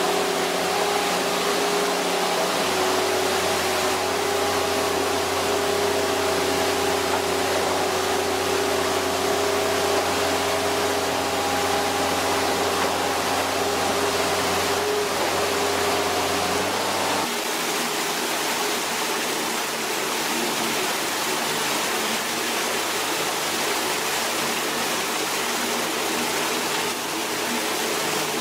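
A steady rushing noise with a machine's steady hum and whine underneath; the hum drops out about 17 seconds in, leaving only the rushing.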